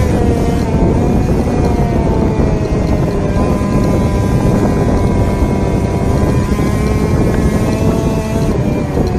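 Yamaha NMax scooter riding at low speed: the engine runs with a steady whine that drifts slightly in pitch as the throttle changes, under heavy wind rumble on the microphone.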